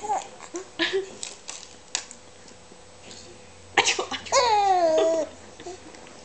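A woman coughing in short fits, set off by the burn of spicy seaweed. About four seconds in comes a harsh burst, then a long vocal cry that falls in pitch.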